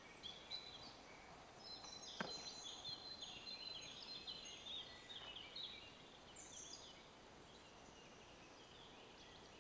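Faint birdsong: quick, high chirping phrases from small birds in woodland, starting about two seconds in and fading out around seven seconds, with one soft click about two seconds in.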